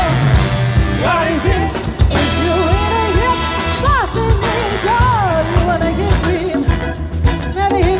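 Live funk band playing: a woman singing lead over electric guitars, bass, drums, congas and a horn section of trumpets and saxophones, with a steady beat.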